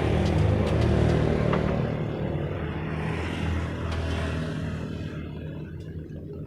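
A motor vehicle's engine passing by, its sound fading steadily away, with a few faint ticks over it.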